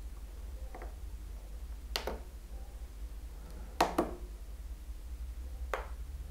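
Sharp clicks of an Eachine TX16S radio transmitter's buttons being pressed to move through its bootloader menu. There is a faint one under a second in, a quick double click about two seconds in, a louder pair near four seconds and one more near six, over a low steady hum.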